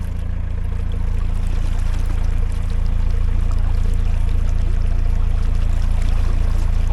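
Narrowboat's diesel engine running steadily under way, with water rushing along the hull.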